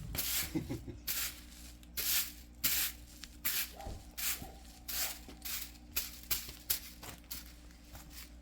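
Rhythmic rasping strokes, two to three a second, over a faint steady hum.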